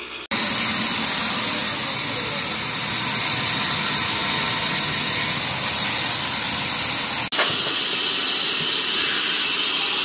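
Electric motor and V-belt drive of a sawmill band saw running, a loud, steady rushing noise. It breaks off for an instant shortly after the start and again about seven seconds in, changing slightly after each break.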